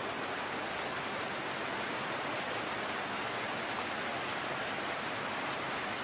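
River water rushing steadily: an even hiss with no breaks.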